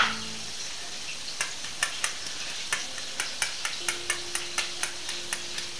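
A small spice jar of pink curry powder shaken and tapped over a plastic cup, giving a run of light clicks about four a second from a little over a second in, after a sharp knock at the very start. A steady frying sizzle runs underneath.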